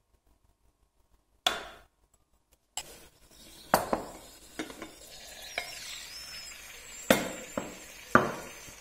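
A spoon clinks once against a small ceramic bowl, then a glass lid and glass bowl knock and clink several times against a wooden cutting board as the lid is lifted off and set down, the loudest knocks near the end.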